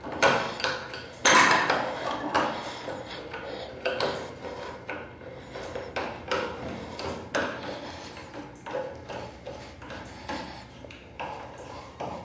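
Small plastic and metal parts of a pressure flush valve clicking and knocking as they are handled and fitted back together by hand. The knocks are irregular, the loudest about a second in.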